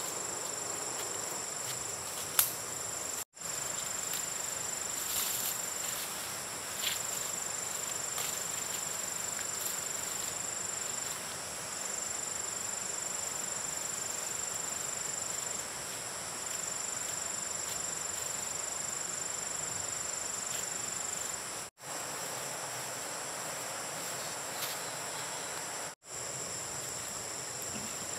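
Insects chirring in a steady, high-pitched trill that pauses briefly now and then, with a sharp click about two seconds in. The sound drops out for an instant three times.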